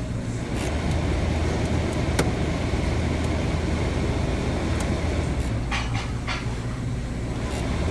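True TS-72F three-door reach-in freezer running, a steady low machine hum from its fans and refrigeration unit, with the evaporator fan on after the door switch was pressed. A few light clicks and taps, one about two seconds in and a short cluster around six seconds.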